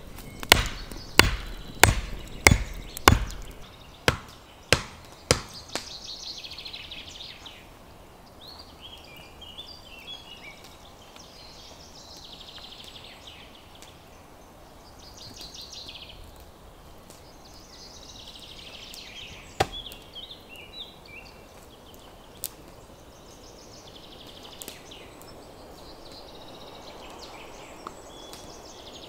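Axe chopping wood: about eight sharp strikes in quick succession over the first five seconds, the later ones softer. Then a bird sings short phrases every few seconds.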